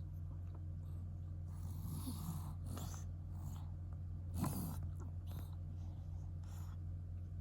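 A sleeping cat snoring and breathing through a congested nose, its breaths coming every second or two with the loudest snore about four and a half seconds in; the nasal snoring comes from chronic rhinitis left by cat flu. A steady low hum runs underneath.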